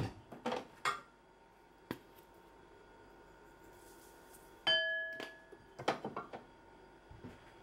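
Light knocks and clicks of a bowl and kitchen things being handled. About halfway through comes one short ringing clink, followed by a cluster of light knocks.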